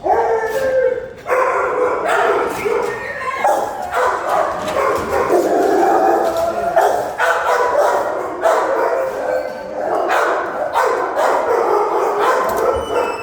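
A dog howling and whining loudly in a long string of drawn-out, wavering calls, one after another with only brief breaks.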